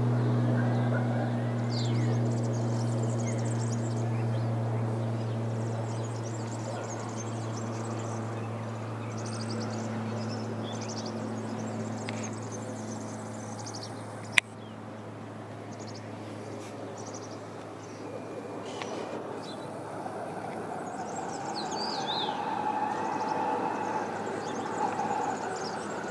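Light propeller aircraft droning overhead, a low steady hum that slowly fades away over the first half, with small birds chirping throughout. A sharp click about fourteen seconds in, and another engine hum growing louder near the end.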